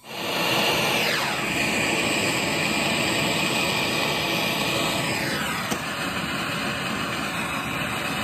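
Handheld gas torch lit and burning with a steady hissing flame, heating a copper pipe joint for soldering.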